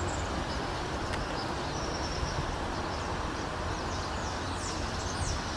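Small birds giving thin, high calls: one short held note, then a quick series of short down-slurred notes about four seconds in, over a steady low background rumble.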